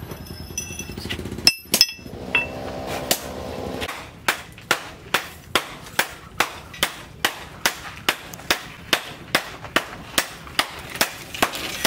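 Metal workshop sounds: two sharp metal clanks about a second and a half in, then a steady, evenly spaced run of sharp clicks or taps, about two and a half a second.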